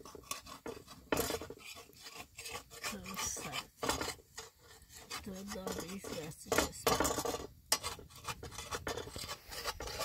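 Metal spatula scraping and clinking against an iron griddle as flatbread is worked loose over a wood fire, in many irregular short rasping strokes.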